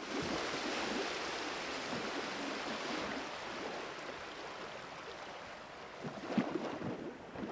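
Steady rushing outdoor noise that slowly fades, with a few faint knocks near the end.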